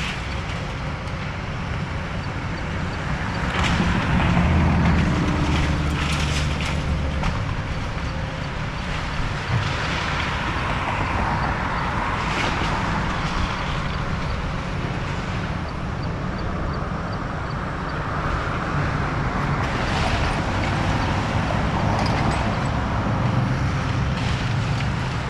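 Diesel excavator engine running, swelling under load about four seconds in and again near the end, with scattered cracks and crashes of a house's debris being torn apart and dropped.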